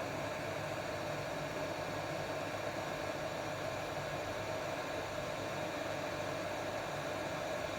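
Steady hiss of air from a hot-air rework station blowing on the laptop board, with a constant mid-pitched hum in it.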